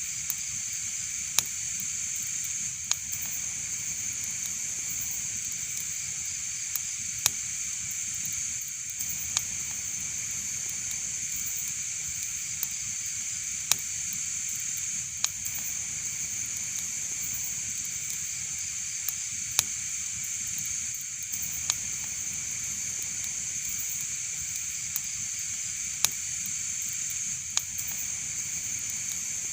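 Wood fire crackling: a steady high hiss with sharp single pops about every one to two seconds.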